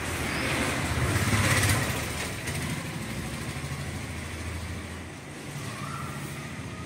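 A vehicle passing: a low rumble that swells about a second in and then settles, with a short bird chirp near the end.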